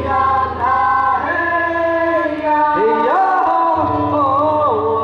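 A group of voices sings an Amis lead-and-response chant in vocables, holding and sliding notes together over a steady low bass note.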